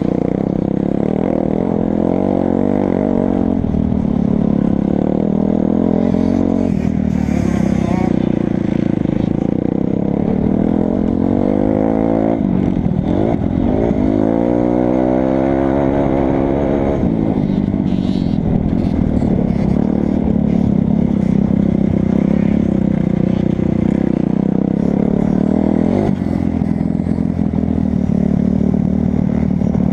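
2008 Kawasaki 250 dirt bike's engine running hard on a motocross track, its pitch rising and falling as the throttle is worked and gears change, with a long drop and climb in pitch around the middle.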